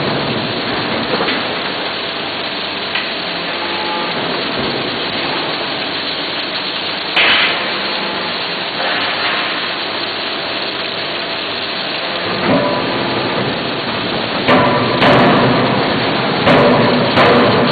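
Steady loud din of a forging shop, broken by a handful of sharp blows from a closed-die forging hammer striking hot connecting-rod blanks in the die: one about seven seconds in and a cluster of several in the last few seconds.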